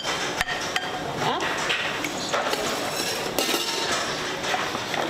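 A spatula scraping and knocking against a bowl as potatoes are scraped out into a saucepan, with several sharp taps.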